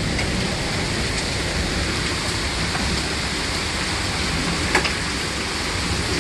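Heavy downpour of rain mixed with hail, a steady dense hiss, with a few sharp ticks standing out, the clearest about five seconds in.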